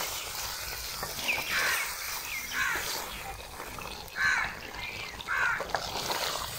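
Crows cawing, about five separate caws spread over a few seconds, over a steady hiss.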